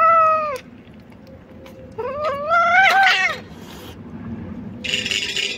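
A cat meowing twice: a short call, then about two seconds in a longer, rising, wavering yowl. Near the end there is a short noisy rasp.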